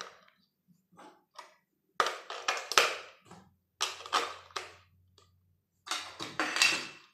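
AA batteries being pressed into the spring contacts of a hollow plastic toy's battery compartment: short clusters of clicks and plastic rattles.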